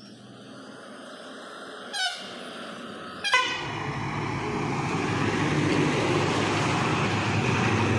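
Two short horn blasts, the second louder, from trucks coming up to a hairpin bend. After the second blast the heavy diesel engine noise of the trucks grows steadily louder as they round the bend and approach.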